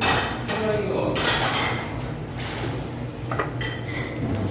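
Metal tongs and scissors clinking and scraping against a stone bowl and tableware while galbitang beef is cut and served: irregular clatter, with a few short sharp clicks near the end.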